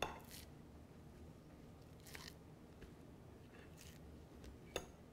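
Near silence with a few faint, short scrapes and one light click near the end: a fork turning raw steaks on a plate.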